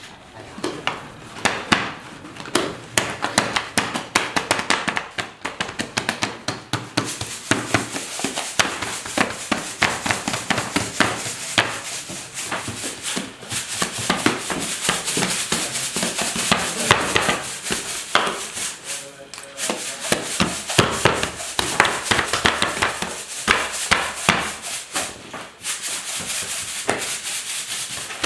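Bread dough being worked by hand: quick, irregular knocks, slaps and rubbing with no steady rhythm. A steady hiss joins about seven seconds in.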